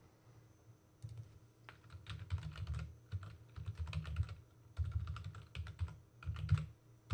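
Typing on a computer keyboard: several quick bursts of keystrokes starting about a second in, with short pauses between them.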